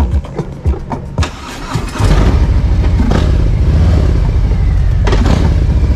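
Harley-Davidson Road Glide's V-twin engine running. About two seconds in it becomes suddenly much louder and then runs steadily and loudly.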